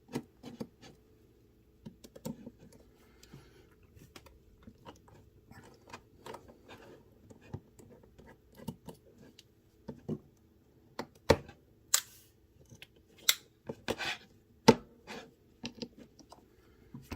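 Irregular small clicks and scrapes of a driver and metal parts handled while taking apart a Spyderco Para Military 2 folding knife, working at a tight screw. The clicks come sparsely at first and grow sharper and louder in the second half.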